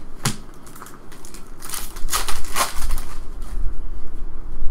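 Hands flipping through a stack of Cryptozoic trading cards, the card edges sliding and snapping against each other in a run of quick scrapes and clicks that gets denser and louder about two seconds in.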